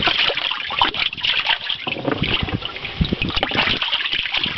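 Bluegill splashing at the surface of a crowded fish-hauling tank as a dip net works among them: a dense run of quick, irregular water splashes.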